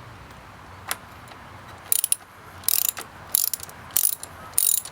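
Hand socket ratchet clicking in short strokes, about one and a half a second, working a bolt during an oil change. A single click comes about a second in before the strokes start.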